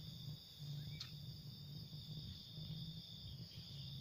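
Night-time crickets trilling steadily at a high pitch, with a faint low rumble coming and going underneath and a single brief click about a second in.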